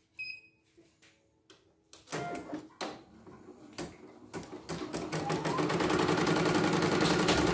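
CNY portable embroidery machine gives a short beep at its control panel, then starts stitching, its needle strokes speeding up over a few seconds to a steady fast run. It is running smoothly with its newly replaced motor and power supply.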